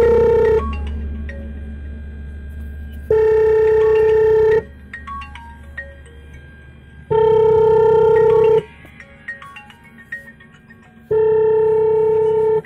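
Electronic tune: a loud held note of about a second and a half comes back every four seconds, with short plinking melody notes between.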